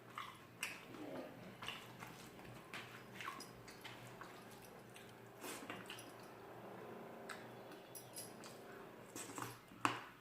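Close-up eating sounds: chewing with wet mouth clicks and smacks, and a sharper click just before the end.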